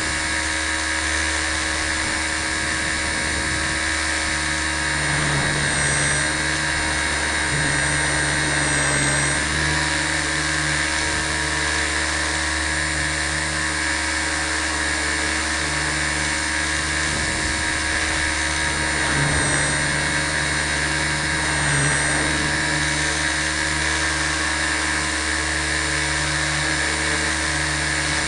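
T 250 RC helicopter in flight, heard from a camera mounted on its frame: a loud, steady whine made of many tones at once. It swells slightly twice, about a third of the way in and again near two-thirds.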